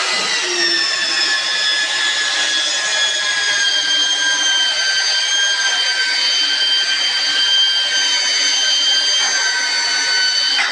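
Electric hand planer running as it cuts along a wooden beam: a loud, high steady whine whose pitch sinks slowly.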